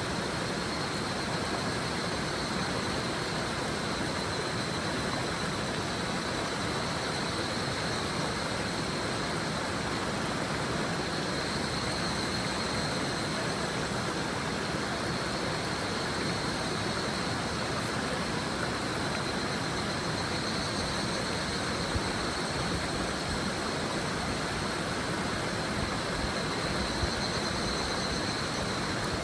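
River water babbling steadily over stones, with higurashi (evening cicadas) calling: a high, ringing trill that swells and fades again several times.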